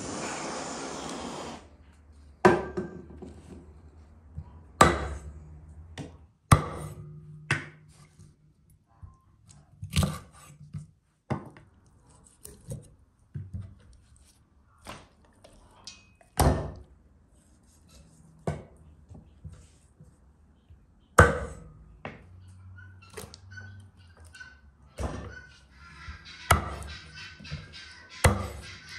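A large kitchen knife cutting up a whole raw chicken on a wooden cutting board: irregular sharp knocks as the blade strikes through into the board, one every second or two. A steady hiss cuts off about a second and a half in.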